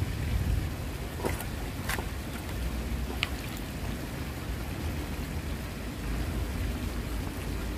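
Wind buffeting the microphone outdoors: a steady, uneven low rumble, with a few faint clicks in the first few seconds.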